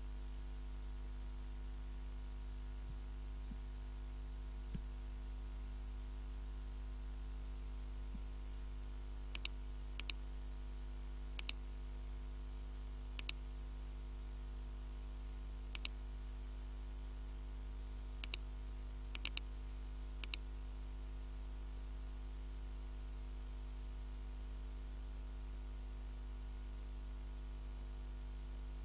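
Steady electrical mains hum, with a series of about a dozen sharp computer mouse-button clicks through the middle of the stretch, several of them in quick pairs.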